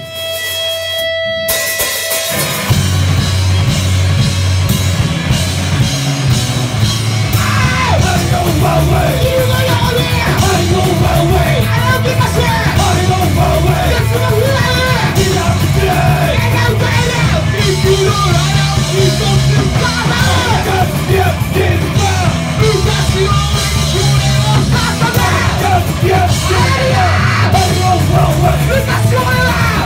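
Punk rock band playing live: after a couple of seconds of held tones, electric guitar, bass and drums come in loud, and shouted vocals join several seconds later.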